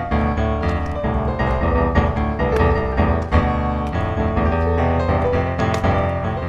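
Background piano music with a steady bass line, many notes played in quick succession.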